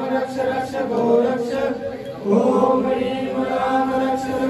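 A group of voices chanting a mantra together in long, drawn-out phrases, with a short pause for breath about two seconds in.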